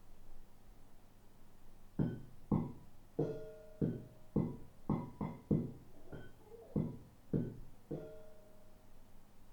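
A drum being played in the flat upstairs, heard through the ceiling: a steady run of struck hits with short ringing pitches, about two a second, starting about two seconds in.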